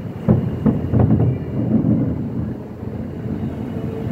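Aerial fireworks shells bursting: four booms in quick succession in the first second and a half, then a rolling rumble of further bursts.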